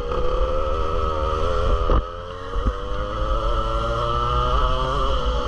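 Two-stroke racing kart engine heard from on board at speed, a steady buzzing note that rises and falls with the revs. The engine note dips briefly about two seconds in as the throttle comes off, then picks up again.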